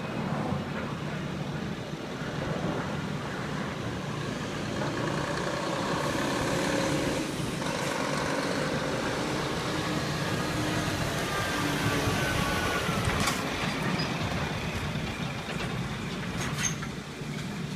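Diesel engine of a Scania articulated lorry pulling a flatbed trailer, its pitch rising and gliding as it accelerates and turns, loudest as it passes and then fading. A couple of brief sharp noises come in the second half.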